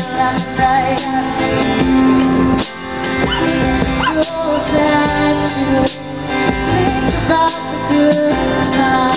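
Live acoustic music: a woman singing over several strummed acoustic guitars.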